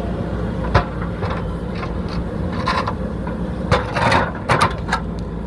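The engine of a JCB backhoe loader running steadily, with a sharp knock about a second in and a cluster of clanks and scrapes a little before the end.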